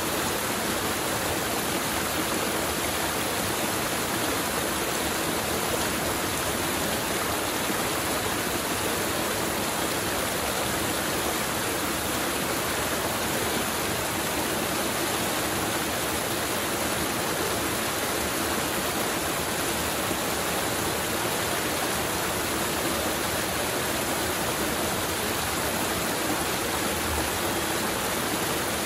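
Mountain river water rushing over rocks, a steady, unbroken flowing sound.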